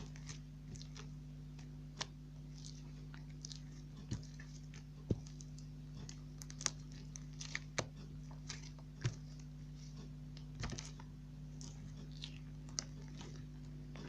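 Slime being squeezed and stretched by hand, giving irregular small clicks and pops over a steady low hum.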